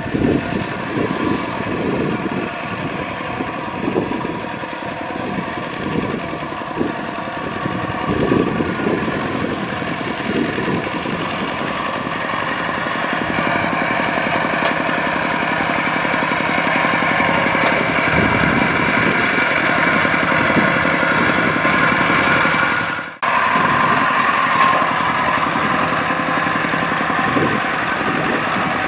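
Two-wheel walking tractor's single-cylinder diesel engine chugging under load as it pulls a loaded trailer through mud and water. The sound is rougher and more uneven in the first half and steadier later, with a momentary break about two-thirds of the way through.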